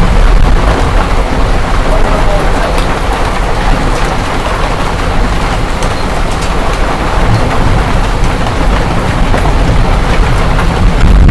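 Hail and heavy rain pelting down in a loud, steady hiss, with many small sharp ticks of hailstones striking and a deep rumble underneath.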